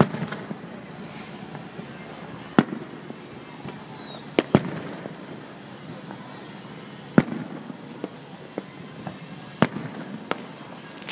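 Aerial firework shells bursting in a steady run of sharp single bangs a couple of seconds apart, two of them in quick succession about four and a half seconds in. Fainter pops and crackles sound between the bangs.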